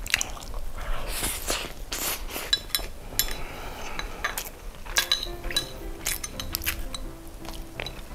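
Chopsticks clicking and clinking against a small ceramic plate while noodles are eaten, many short sharp ticks scattered through, with soft eating noises between them.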